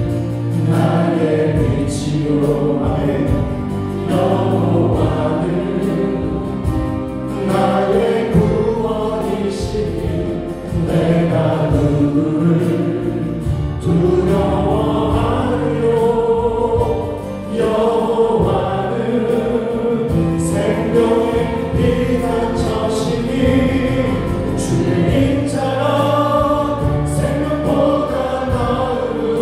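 A church congregation singing a worship song together, accompanied by a band of electronic keyboards, bass guitar and drums.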